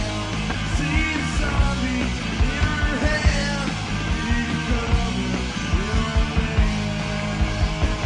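Rock band playing a grunge song live at a soundcheck: electric guitar, bass and drums, with the drums hitting steadily throughout.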